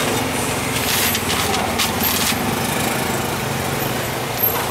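A small engine running steadily, with a few short sharp clicks about a second in and near the end.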